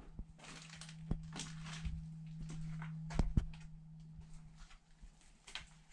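Footsteps scuffing over a debris-strewn floor in a small room, with a few sharp knocks, the loudest two close together about three seconds in, over a steady low hum.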